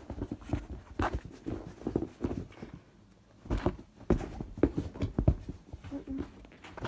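Irregular taps, knocks and rustles of handling as soft squishy toys are picked up, moved and set down, with a brief lull about three seconds in.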